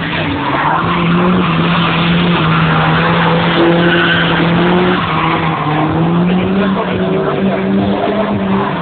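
Drift car engine held at high revs through a long slide, its note steady and shifting a little up and down, with the tyres skidding and squealing.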